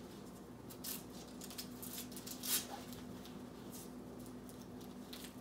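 Soft rustling and scratching of a neoprene-and-nylon posture brace being handled as its Velcro strap end is pressed into place: a few brief scratchy sounds, the clearest about halfway through, over a faint steady hum.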